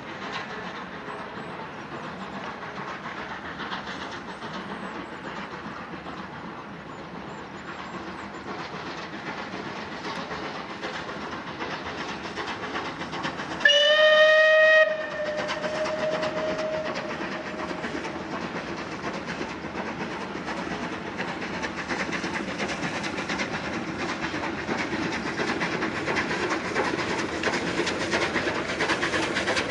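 Steam locomotive hauling a passenger train, its running and exhaust growing louder as it approaches. About halfway through it gives one loud whistle blast of a second or so, which trails away.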